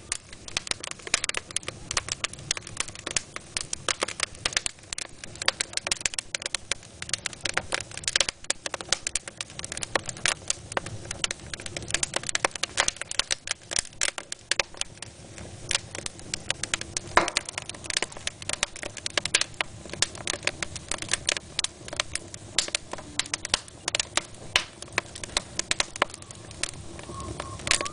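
Wood fire crackling and popping in a fireplace: many sharp, irregular pops all the way through over a low rumble of the flames.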